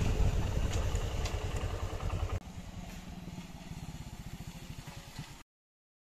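Two-wheeler engine running as it rolls up, with wind noise. About two and a half seconds in the noise drops away, leaving the engine's quieter, even idle pulses, and the sound cuts off suddenly near the end.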